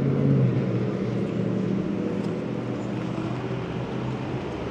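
Low engine drone of a passing motor vehicle over street traffic noise, loudest at the start and fading away.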